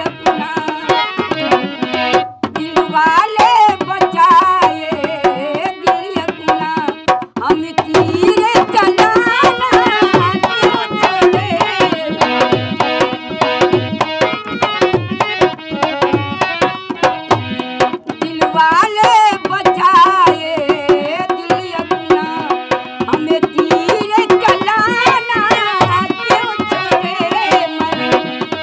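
Dholak barrel drum played by hand in a steady folk rhythm, deep bass strokes about once a second under quicker slaps, accompanying an elderly woman singing a folk song.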